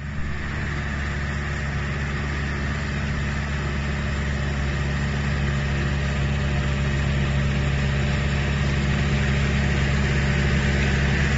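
Engine of a 50-horsepower paddy-field boat tractor running steadily as it drives through the field, growing slowly louder as it approaches.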